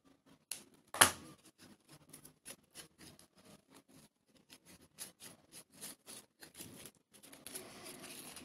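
Hands handling a grosgrain ribbon bow and craft tools: scattered small clicks and ticks, one sharp click about a second in, and ribbon rustling near the end.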